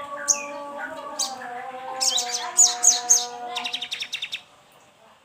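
Sogon bird song used as a lure: sharp high chirps about two seconds in, then a fast trill of rapid repeated notes, over long steady low tones that stop about four seconds in; it goes much quieter near the end.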